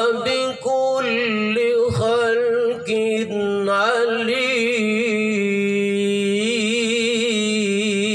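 A man chanting Quranic verses in melodic recitation into a microphone, with long held notes that waver and turn, holding one pitch for several seconds in the second half.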